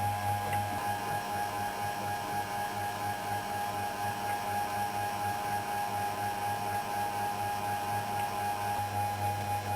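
Stepper motors of a CNC foam cutter running steadily, a constant whine over a low hum.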